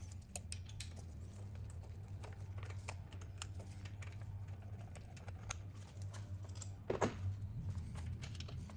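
Light, irregular clicks and taps of metal tools and fixture parts being handled at the valve area of a Lycoming O-320 cylinder, a little louder about seven seconds in, over a steady low hum.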